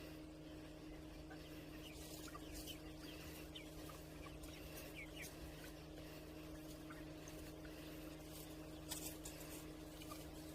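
Chickens foraging quietly: faint scattered chirps and a few soft clicks over a steady low hum.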